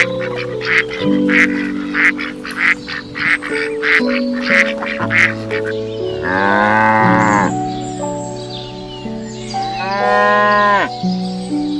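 Two long farm-animal calls, one about six seconds in and one about ten seconds in, over background music with a steady beat.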